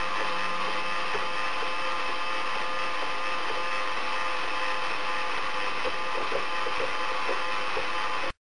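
Hell Feldfernschreiber (Feld-Hell) teleprinter running: its motor and rotating character drum make a steady mechanical whir, with a few light ticks near the end. The sound cuts off suddenly.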